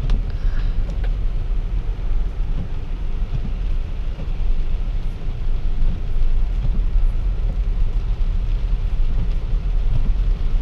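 Steady low rumble of a Tesla electric car driving slowly in rain, heard from inside the cabin: road and tyre noise on a wet highway with no engine sound.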